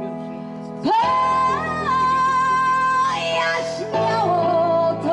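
A woman singing a Polish song into a handheld microphone over instrumental accompaniment with guitar. She holds long notes, the first one from about a second in, stepping briefly up in pitch.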